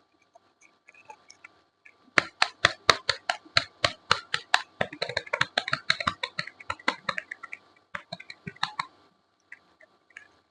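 Soap packaging being handled and opened: a quick, uneven run of crisp clicks and crackles that starts about two seconds in, goes on for about seven seconds and thins out near the end.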